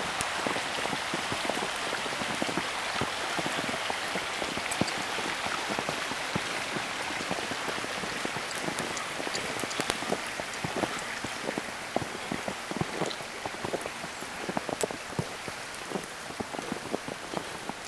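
Precipitation falling in a forest: a dense, irregular patter of small drops or icy flakes hitting the ground and branches over a steady hiss.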